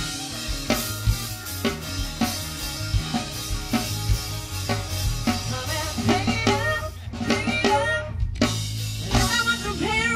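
Live rock band playing: a drum kit with snare and bass drum beating steadily under electric guitar and bass guitar.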